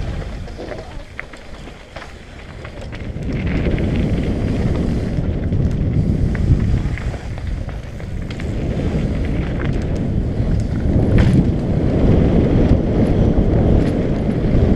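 Wind buffeting the microphone and tyres rolling over a dirt trail as a Trek Session 8 downhill mountain bike descends, with scattered clicks and rattles. The noise drops off about a second or two in, then builds again and is loudest near the end.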